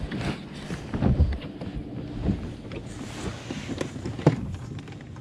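Wind buffeting the microphone in gusts, with scattered short knocks and rustles of handling on a boat deck.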